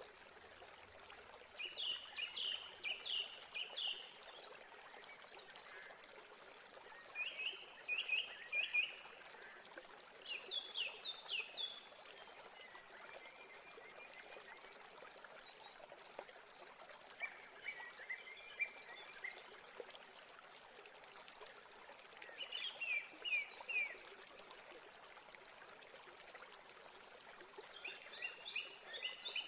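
Dough frying in hot oil in a pan: a soft, steady sizzle. Short groups of high chirping notes break in over it about every few seconds.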